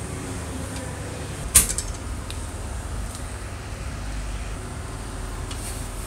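One sharp metallic click about one and a half seconds in, followed by a few fainter ticks, as small metal parts and pliers are handled on an old Royal manual typewriter during disassembly. A steady low rumble runs underneath.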